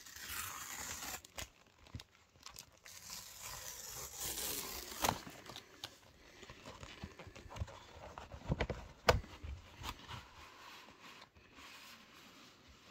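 Tear strip of a cardboard mailer ripped open, followed by cardboard and paper rustling as the parcel is handled, with a couple of sharp knocks about five and nine seconds in.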